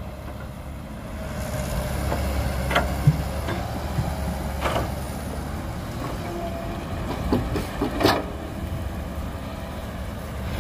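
Heavy diesel earthmoving machinery running steadily with a low rumble, with several sharp knocks and clanks of metal at intervals, the loudest about three seconds in and another about eight seconds in.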